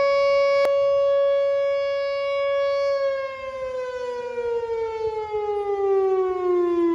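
Whelen 2910 electronic outdoor warning (tornado) siren sounding its steady alert tone during a siren test. About three seconds in, the pitch glides down in a wind-down, and the tone then cuts off sharply.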